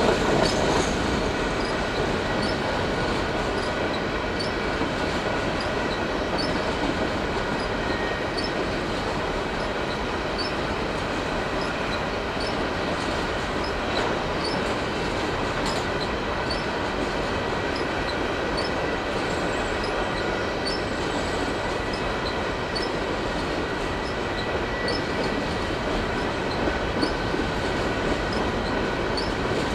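Empty covered hopper cars of a CPKC grain train rolling past at steady speed, their steel wheels rumbling on the rails with light regular clicking. A thin steady squeal from the wheels runs over the rumble.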